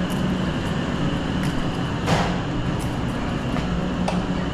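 Steady machinery drone from an elevator machine room's equipment (hoist motors and air-conditioning units), with a low hum and a high whine held throughout. A brief rush of noise about two seconds in, and faint clicks near the start and end.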